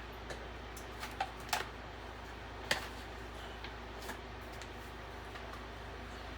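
Scattered light clicks and knocks of kitchen things being handled, the sharpest about two and a half seconds in, over a steady low hum.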